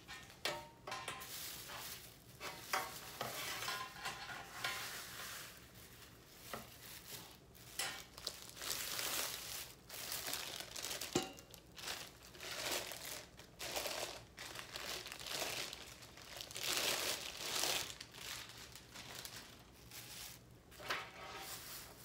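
Plastic wrapping crinkling and rustling in irregular bursts as it is handled and pulled off a stainless steel pot, with a single sharp knock about eleven seconds in.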